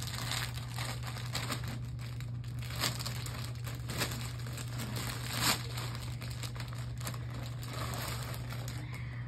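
Clear plastic bag crinkling and rustling as it is handled and pulled open, with a few sharper crackles, the loudest about five and a half seconds in.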